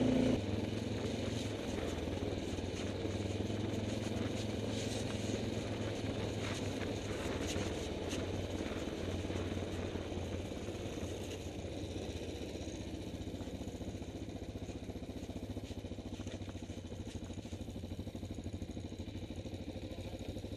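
Quad bike engine running as the quad rides a rough dirt track. The engine note drops sharply just after the start, with scattered rattles in the middle. It then eases off gradually in the second half as the quad slows to a stop.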